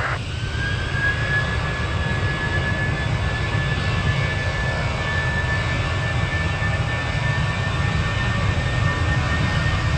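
Jet airliner engines running: a single high whine slowly rises in pitch over a steady low rumble, growing a little louder toward the end. A hiss cuts off at the very start.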